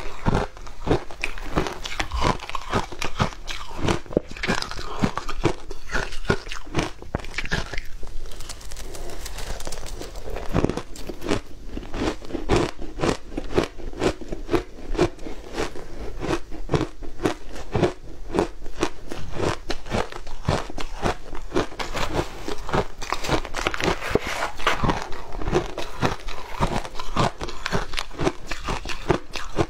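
A person biting and chewing mouthfuls of shaved ice: a dense, continuous run of crisp crunches, with no let-up.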